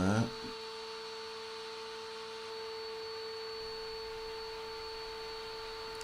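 A steady electrical hum: one constant mid-pitched tone with a fainter higher tone above it. No tool is running.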